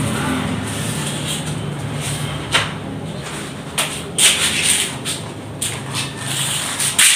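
Short scuffing and rustling noises of rubber work gloves being pulled off, over a low steady hum; the loudest scuffs come about four seconds in and again just before the end.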